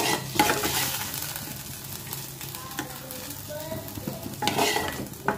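A spoon scrapes fried onions and green chillies out of a hot pan onto a steel plate. The scraping comes in two bouts, one at the start and one near the end, with a low sizzle in between.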